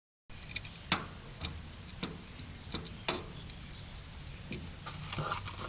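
A series of about eight sharp, irregularly spaced clicks and light taps over a faint steady low hum.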